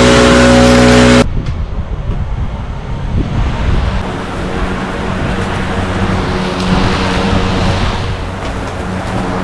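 Loud, steady running of lawn-care power equipment, cut off abruptly about a second in by a switch to a quieter, lower machine drone mixed with noise.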